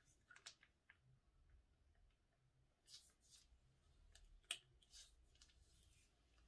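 Faint, sparse clicks and crackles as a plastic piping bag is squeezed and purple slime is pushed out into a glass bowl, with one sharper click near the end.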